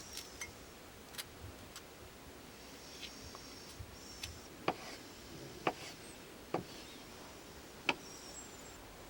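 A dozen or so light clicks and taps at irregular intervals over a quiet background, a few of them sharper in the second half.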